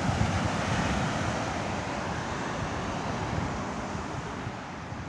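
Ocean surf rushing and washing up the beach, mixed with wind buffeting the microphone as a low, uneven rumble; the rushing slowly gets quieter.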